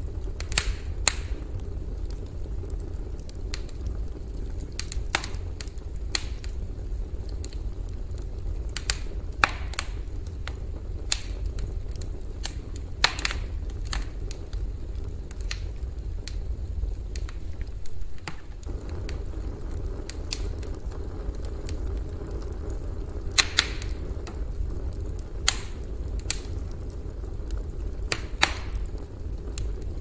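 Wood campfire crackling: sharp, irregular pops and snaps, a few of them louder, over a steady low rumble.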